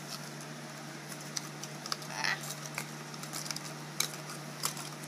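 Scattered small plastic clicks and handling noise as a diecast car is fitted into its clear plastic display case, over a steady low hum.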